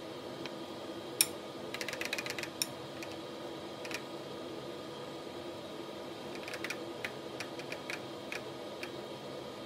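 Utensils clicking and tapping against a glass plate as ground pork is spread and pressed onto a flattened roasted eggplant: one sharp click about a second in, a quick run of taps around two seconds, and another run of light taps in the last three seconds. A steady faint hum runs underneath.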